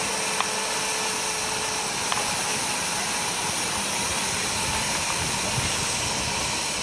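Miniature live-steam locomotive standing and hissing steam steadily, with a couple of faint clicks.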